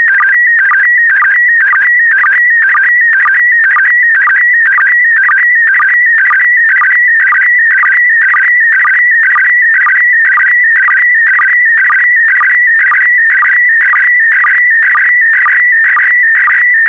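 Slow-scan television (SSTV) signal in PD120 mode: a loud, continuous warbling electronic tone, broken by a sync pulse about twice a second as each pair of image lines is sent.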